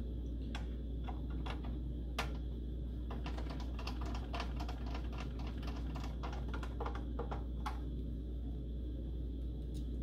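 Rapid, irregular small clicks and ticks of a hand screwdriver and small screws against the metal floppy drive mounting bracket, thickest in the middle stretch, over a steady low hum.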